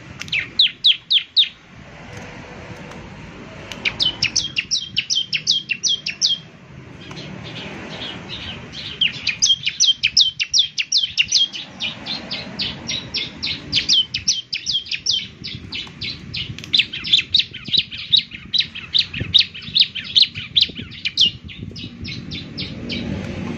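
Bar-winged prinia (ciblek) singing: rapid runs of sharp, high, downward-sweeping notes, about five a second, in bouts. A short burst comes at the start, then a longer one, then a long almost unbroken run through most of the rest.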